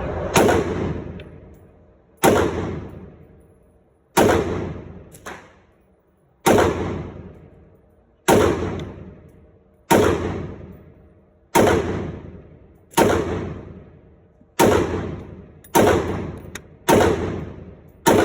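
Palmetto State Armory AK-47 pistol in 7.62 firing about a dozen single semi-automatic shots at a slow, even pace, one every one and a half to two seconds. Each loud crack is followed by a long echoing decay. A fainter crack comes about five seconds in.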